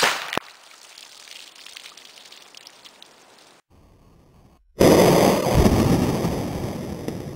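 Quackenbush .308 big bore air rifle firing: a sharp crack, with a fainter knock about half a second later, typical of the bullet striking downrange. A few seconds on comes a second loud blast that dies away over a couple of seconds.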